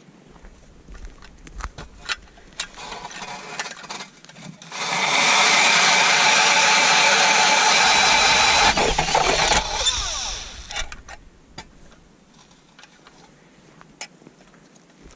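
Makita cordless drill spinning a Mora ice auger, boring into ice: a loud steady whir that starts about five seconds in, holds for about four seconds and then tails off. Scattered knocks and clicks come before and after it.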